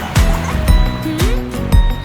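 Instrumental children's song music with a steady beat of about two kick-drum thumps a second under held notes, and no singing.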